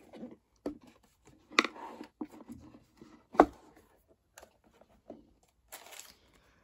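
A rigid cardboard gift box being handled and its lid opened: a few short knocks and scrapes of card, the sharpest about three and a half seconds in, then a brief rustle of tissue paper near the end.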